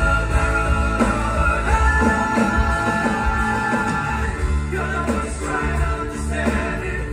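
Live band on stage playing an upbeat rock-and-roll song with guitars, a strong steady bass beat and singing, amplified through the theatre's sound system.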